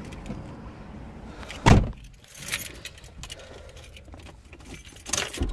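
Jingling and knocking inside a car: light metallic rattles and clicks, a loud thump a little under two seconds in, and another knock near the end.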